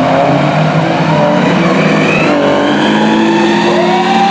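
Engines of a lifted 4x4 mud truck and a pickup truck accelerating hard together in a dirt drag race, revving as they pull away, with the pitch rising more than once.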